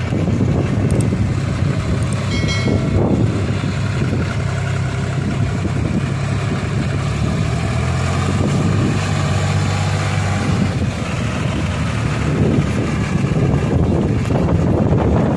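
John Deere 5103 tractor's three-cylinder diesel engine running steadily under load as the tractor works through flooded paddy mud and water.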